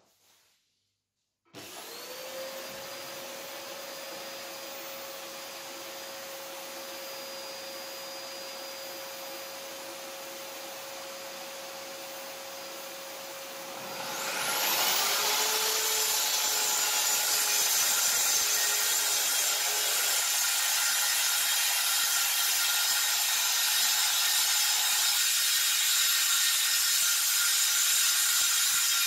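A dust extractor hooked to the saw switches on about a second and a half in and runs steadily. About fourteen seconds in, a Hychika CS-190C circular saw spins up with a rising whine, its soft start, then runs louder while cutting through a plywood board.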